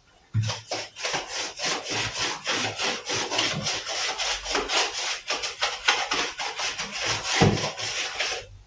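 Rapid, rhythmic scraping of a hand tool stirring and mixing plaster in a bucket, several strokes a second, stopping near the end.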